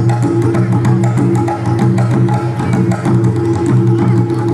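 Panamanian tambor corrido folk music: drums keep up a quick, steady rhythm under sustained pitched parts.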